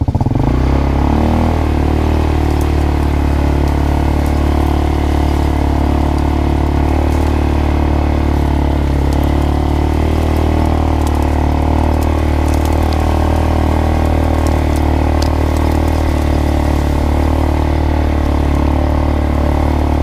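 Quad bike (ATV) engine running at a steady, constant note while being ridden slowly through tall weeds, with light crackling from stalks brushing the machine.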